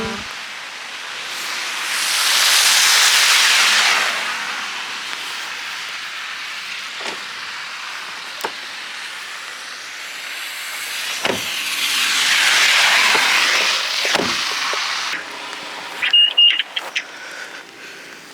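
Two cars passing on a wet, snowy street, their tyres hissing as each swells up and fades away. A few light knocks fall in between, and there are short high chirps near the end.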